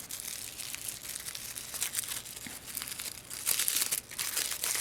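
Wrapping of a small advent-calendar package crinkling and tearing as it is unwrapped by hand, a continuous crackly rustle that gets louder in the second half.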